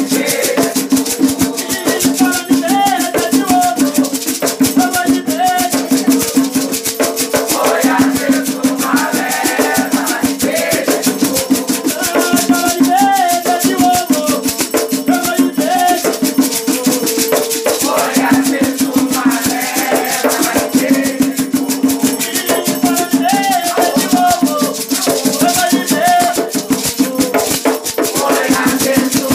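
Afro-Brazilian Batuque religious music: voices singing a chant over a fast, steady shaker rhythm and percussion.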